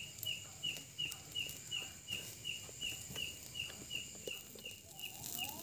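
Night insects chirping: one short chirp repeating evenly about three times a second over a steady high-pitched buzz, with faint chewing close by.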